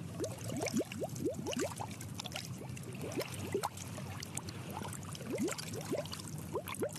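Bubbles gurgling in water: many short rising bloops at irregular intervals, with small clicks over a steady low hum.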